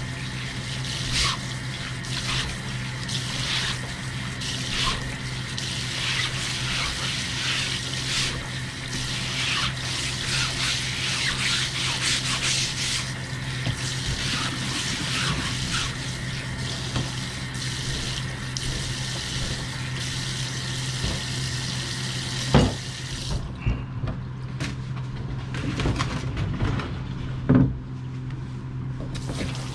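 Kitchen faucet spraying water into a stainless steel sink, with a sponge rinsed and wiped over a plastic cutting board; the water stops about 23 seconds in, followed by a couple of sharp knocks. A steady low hum runs underneath.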